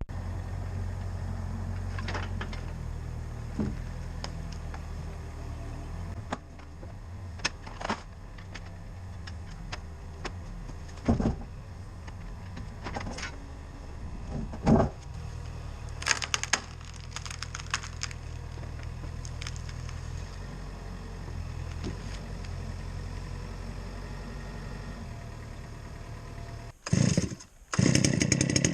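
Cat 304 CR mini excavator's diesel engine idling steadily, with scattered metallic clanks and jingles of log chains being unhooked. Near the end the idle stops and a chainsaw starts with a short loud burst.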